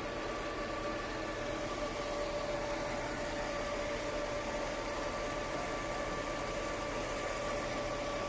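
Heavy vehicle engine running steadily, a continuous high whine over a rushing mechanical noise, with no change in pitch.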